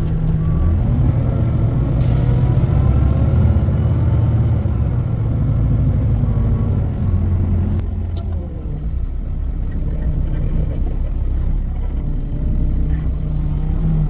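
Concrete mixer truck's diesel engine running under way, heard from inside the cab; its pitch rises in the first couple of seconds and drops lower about eight seconds in. A brief hiss about two seconds in.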